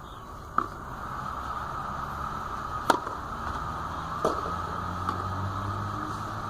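Tennis ball struck by rackets three times during a rally, sharp hits with the middle one the loudest, over a steady background hiss.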